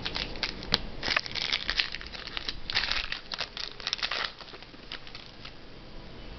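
Crinkling and rustling of plastic card packaging as trading cards are handled, with quick crackly clicks; busy for about four seconds, then a few light ticks.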